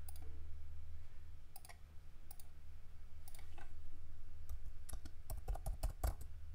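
Clicks and taps of a computer mouse and keyboard: a few spread-out clicks at first, then a quick run of taps about five to six seconds in. A low steady hum sits underneath.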